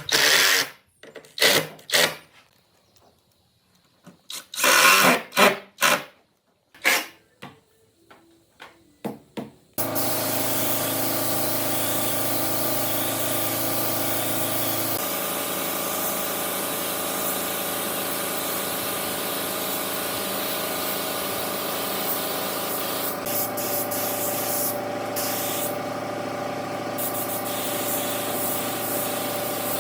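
A run of short hissing spray bursts with pauses between them. About ten seconds in, a steady machine starts suddenly and keeps running with a constant hum and hiss.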